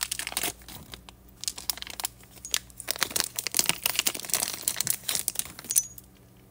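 Thin clear plastic bag crinkling in the hand in quick irregular crackles, stopping near the end.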